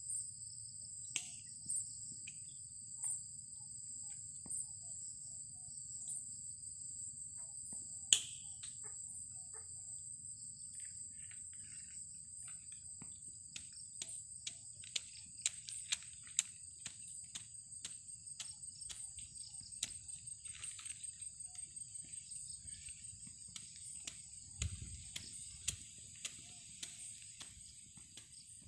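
Insects trilling steadily at two high pitches, with scattered sharp clicks that come more often in the second half and a faint low rumble underneath.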